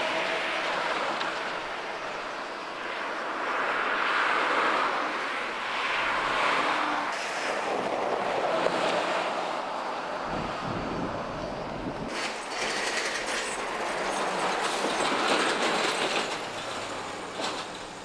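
Highway traffic passing at speed: trucks, a coach bus and cars, their tyre and engine noise swelling and fading in several waves, with a deep rumble near the middle. Clattering bangs come as heavy wheels cross the large potholes.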